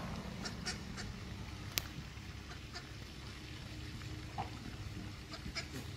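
Mallard ducks giving a few faint, scattered short calls over a steady low rumble, with one sharp click about two seconds in.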